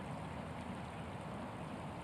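Small creek flowing steadily over a shallow riffle: a constant, even wash of running water.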